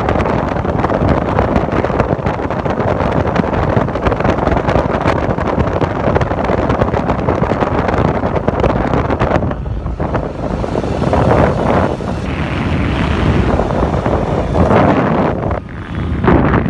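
Wind rushing over a phone microphone on a moving motorbike, with a low rumble of engine and road noise beneath. The hiss thins out about ten seconds in.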